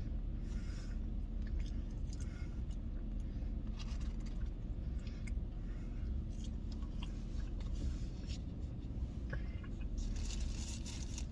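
A person chewing and eating loaded fries with bacon and cheese sauce, with small wet mouth sounds and soft clicks over a steady low hum.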